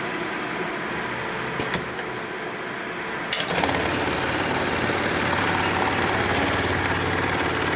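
Juki AMS-210EN computer-controlled pattern sewing machine: a couple of sharp clicks, then a little over three seconds in it starts stitching and runs steadily and rapidly, sewing a strip of hook-and-loop (Velcro).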